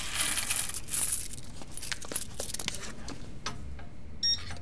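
Rustling and scattered small clicks of coins being gathered by hand, then an electronic safe's keypad beeping as its buttons are pressed near the end.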